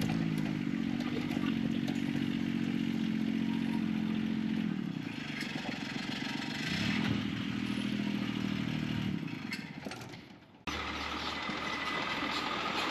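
A vehicle engine running as it drives along, with rattling and clatter over it. The engine note eases off about halfway, picks up again, then fades. It is cut off abruptly near the end and replaced by a different rumbling, rattling run.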